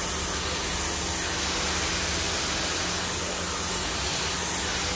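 Hand-held hair dryer blowing, a steady even rush of air over a low motor hum.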